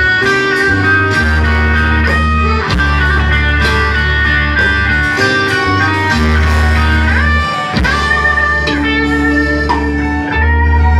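Live rock band playing an instrumental passage without vocals: electric guitar notes, some of them bent in pitch, over long held bass notes and drum hits.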